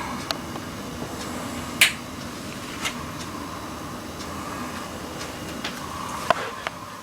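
Several sharp light clicks and knocks of small objects being handled and set down, the loudest about two seconds in and another pair near the end, over a steady room hum.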